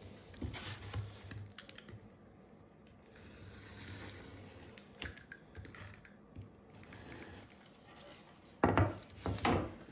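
Blue painter's tape being cut around a pattern and worked loose from a wooden hockey stick: quiet small clicks, scratches and rustling, with a few louder rasps near the end.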